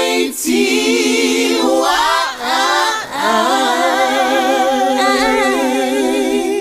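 A cappella closing jingle: several layered voices singing long, wavering held notes, with short breaks about two and three seconds in.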